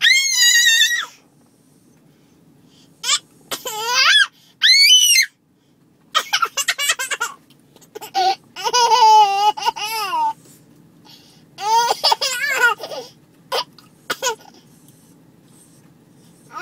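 A baby laughing hard in repeated bouts a second or two long, with short pauses between them and some very high squeals.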